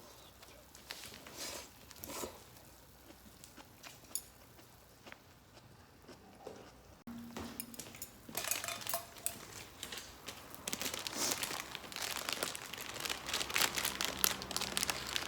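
Plastic wrapper of a packet of Korean instant ramen (sari-myeon) being torn open and crinkled. There are a few scattered rustles at first, then busy, continuous crinkling from about halfway in.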